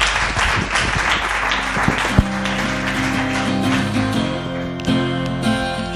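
Audience applauding, dying away over the first two seconds or so, while music fades in and carries on as an outro.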